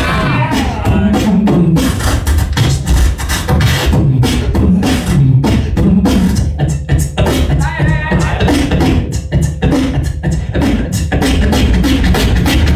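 A beatboxer performing into a microphone through a PA: fast, driving kick, snare and hi-hat sounds over a heavy amplified bass, with short pitched vocal glides at the start and about eight seconds in.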